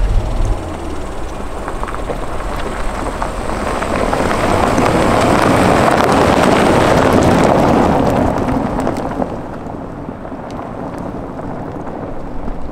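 Rolls-Royce Cullinan SUV driving past on a gravel track, its tyres crunching over loose stones. The noise builds, is loudest about six to seven seconds in as the car passes close, then fades as it drives away.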